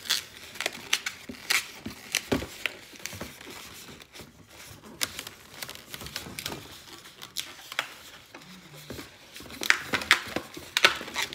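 Inflated black latex modelling balloon being pinched and twisted by hand into a spider leg: a string of short, irregular rubbing and squeaking sounds from the latex, busiest near the end.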